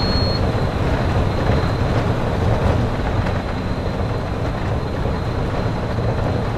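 Walt Disney World monorail running along its concrete beamway, heard from inside the front cabin: a loud, steady rumble of motors and rubber tyres with a faint thin high tone over it.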